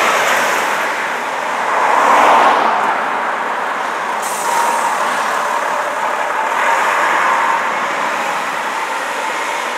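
Diesel coach passing close, loudest about two seconds in, then pulling away as it turns off, with tyre and traffic noise from passing cars.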